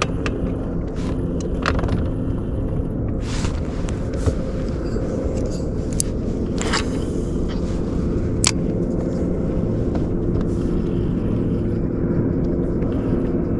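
Boat motor running steadily with an even hum, with a few brief swishing noises over it.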